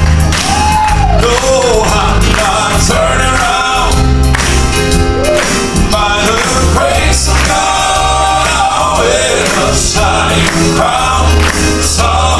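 Southern gospel male quartet singing in close harmony with piano accompaniment and a strong bass line.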